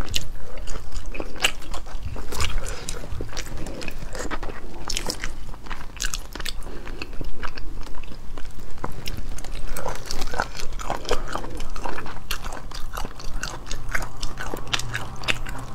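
Close-miked eating: biting and chewing snail meat pulled from the shell, wet mouth sounds broken by many irregular sharp clicks and crackles.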